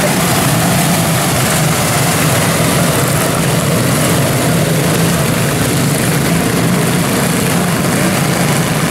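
A pack of 160 Light quarter midget race cars running together on a dirt oval, their small single-cylinder engines blending into one steady engine note.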